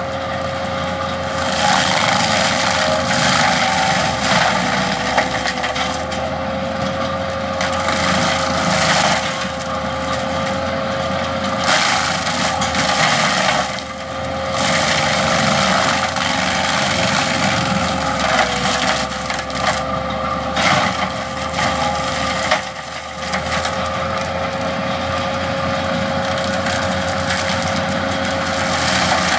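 Bobcat T870 compact track loader running a 50-inch forestry mulcher, its spinning drum grinding pine trees and brush with a dense crackling and splintering of wood over a steady high whine. The whine dips briefly in pitch twice.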